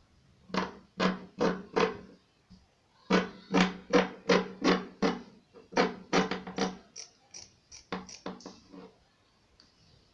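Large dressmaking scissors snipping through layers of folded satin fabric on a wooden table, in three runs of quick snips, several a second, with short pauses between.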